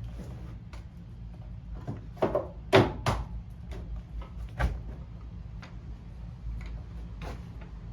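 Scattered sharp knocks and clacks, a few close together about two to three seconds in and another near five seconds, over a low steady hum.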